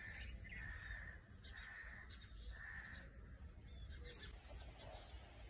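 A bird calling four times in quick succession, short even notes, faint over a low rumble. A brief click about four seconds in.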